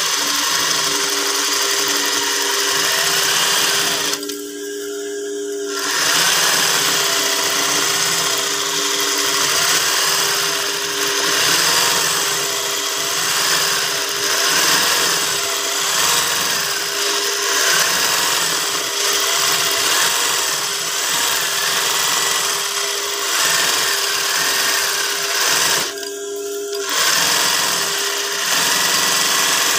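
Sewing machine stitching free-motion embroidery as fabric is guided under the needle. It runs steadily, easing off briefly about four seconds in and again near the end.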